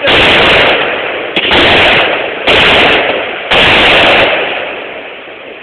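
Fireworks going off: four loud bangs about a second apart, each trailing away before the next.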